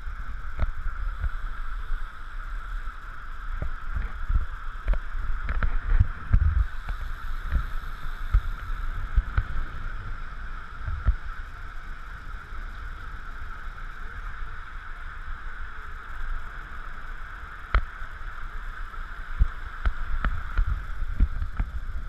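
Wind buffeting and road rumble picked up by a camera riding on a recumbent bicycle at speed, with a steady high hum and frequent short knocks and thumps as the bike jolts over the road surface.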